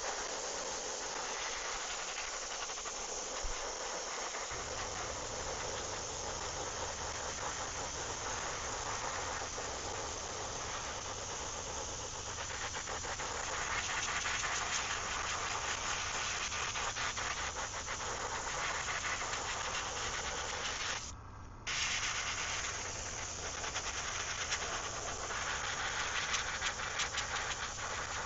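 Airbrush spraying white paint: a steady hiss of air, stopping briefly about 21 seconds in and then resuming. A low hum joins about four seconds in.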